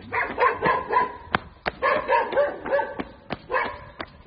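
A dog barking in three quick runs of short yaps, over steady footsteps on gravelly ground, about three steps a second.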